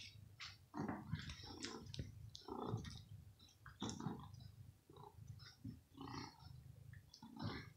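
Cat's short, irregular sounds as it jumps and paws at raw meat held above it, coming about once or twice a second.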